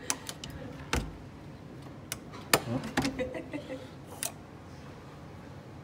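Plastic hotel keycard being slid into and pulled out of a door lock's card slot: a run of sharp clicks and knocks, with a duller thump about a second in and the loudest click about two and a half seconds in.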